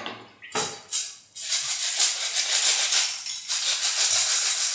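Red onion being slid rapidly back and forth over a handheld mandoline slicer: a fast, dense rasping scrape that starts about a second and a half in, after a few sharp knocks.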